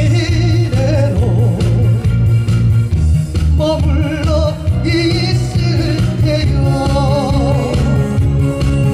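A man singing a slow vocal line with strong vibrato into a microphone, amplified through stage speakers, over instrumental accompaniment with a steady bass beat.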